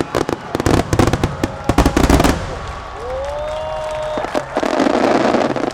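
Aerial fireworks: a fast run of many overlapping bangs and crackles that stops about two seconds in, typical of a star mine barrage. Then comes a long rising call from the crowd, and near the end a burst of crowd noise.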